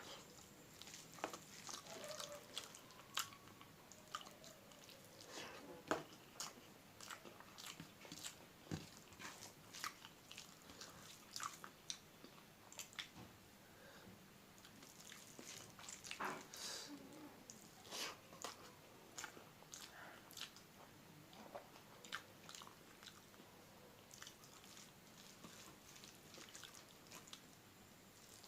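Close-up eating sounds: chewing and mouth smacks while eating egg curry and dal, with many small, sharp clicks scattered irregularly.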